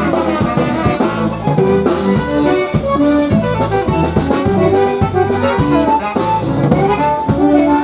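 Live polka band playing an instrumental passage, accordion carrying the melody over a steady drum beat.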